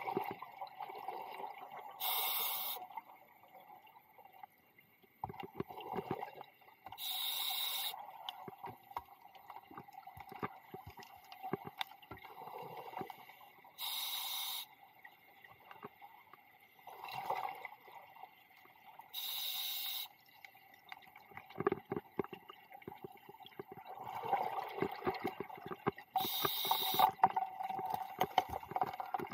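A scuba diver's regulator breathing underwater: five short hisses, several seconds apart, with bubbly gurgling of exhaled air between them.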